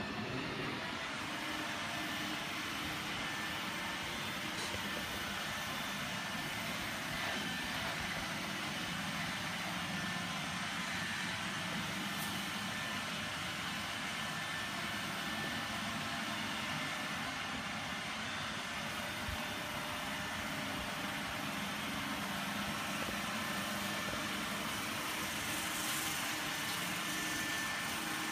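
iRobot Roomba 880 robot vacuum running steadily: its suction motor and brushes make a continuous hum, with a faint steady high whine above it.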